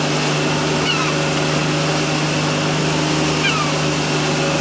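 Boat engine running at a steady pitch, a constant drone, while a gull cries briefly twice, about a second in and again near the end.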